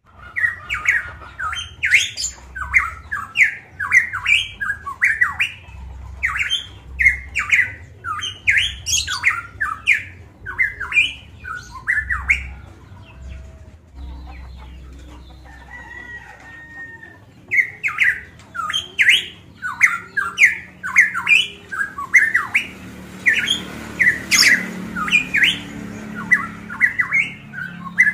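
Caged variable pitohui (cucak emas papua) calling vigorously in fast runs of short, sharp, loud notes. About halfway it breaks off for a few seconds, leaving only a faint thin whistle, then starts again.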